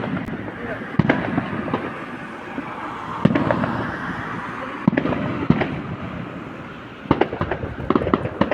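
Fireworks display going off: sharp bangs every second or two, coming closer together near the end, over a continuous rumbling echo.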